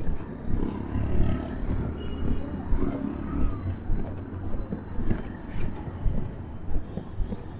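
Busy city street ambience: auto-rickshaw and motorcycle engines with a low engine rumble passing close about a second in, over a background of voices and footsteps.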